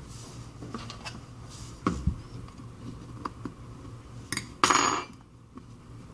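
Small clicks and taps of precision tools and tiny phone parts being handled on a hard work surface, with a louder short scraping rustle about four and a half seconds in.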